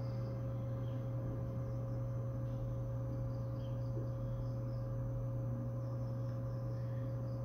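A steady low hum with a fainter, thin higher tone held above it, unchanging throughout.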